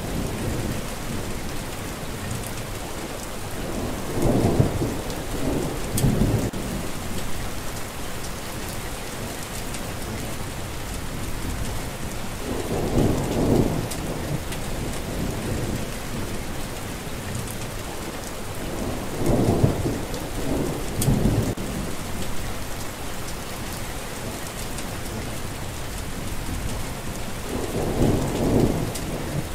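Steady rain falling, with low thunder rumbling four times, each roll lasting a second or two.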